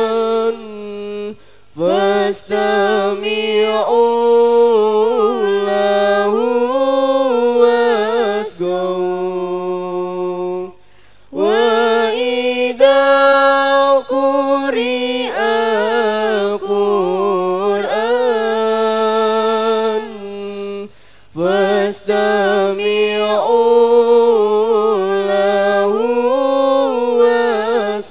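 A girl's solo voice chanting melodically into a microphone, unaccompanied, in the Arabic recitation style. Long held notes with ornamented turns, broken by a few short pauses for breath.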